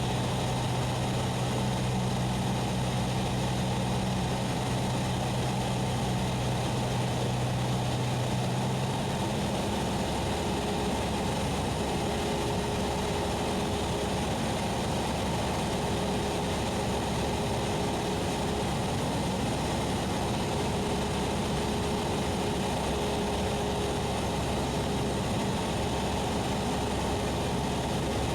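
Cessna 172SP's four-cylinder Lycoming engine and propeller giving a steady in-flight drone in the cockpit. About nine seconds in, the low hum in the drone changes and higher tones come and go.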